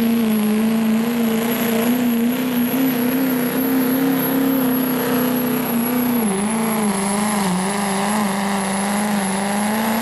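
Chevrolet Duramax turbo-diesel pickup at full throttle pulling a weight-transfer sled: a loud, steady engine note with a high turbocharger whistle above it. About six seconds in, the engine note dips and then wavers up and down.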